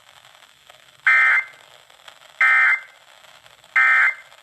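Emergency Alert System end-of-message signal: three identical short bursts of SAME digital data tones, each about a third of a second long and about 1.3 s apart, heard over faint broadcast hiss.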